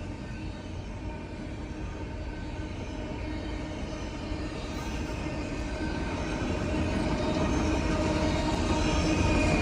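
Freight train led by a GE ET44AC diesel-electric locomotive approaching: a steady engine drone with a low rumble, growing steadily louder.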